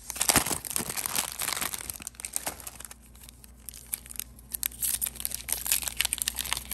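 Foil Pokémon booster pack wrapper crinkling and crackling in the hands as it is worked open, with a quieter lull about halfway through.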